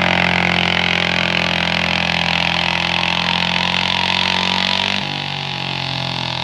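Modified garden-tractor pulling engine running hard at steady high revs while pulling a weight sled. About five seconds in the note steps down slightly in level and changes in tone.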